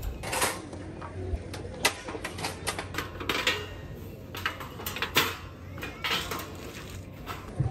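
Folding steel fire pit being put together: the wire frame, grate and thin steel side panels clinking and scraping against each other in a string of light, irregular metallic knocks.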